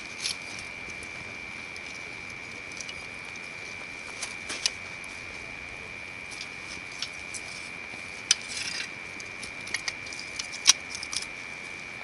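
Hardwood campfire crackling, with sharp irregular pops, the loudest about eight and ten and a half seconds in.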